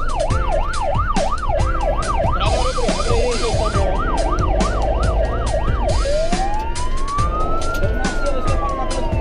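Fire engine's siren heard from inside the cab over the truck's engine and road noise: a fast yelp sweeping up and down about three times a second, switching about six seconds in to a slow wail that rises and then falls.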